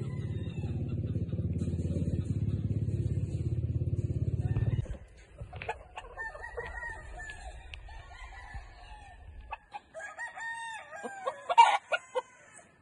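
A gamefowl rooster crowing twice, after a low steady rumble that stops abruptly about five seconds in.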